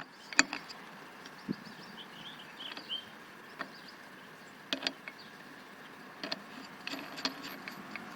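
Scattered light clicks and clinks of a grinding disc, backing flange and retaining nut being handled and fitted onto an angle grinder's spindle by hand.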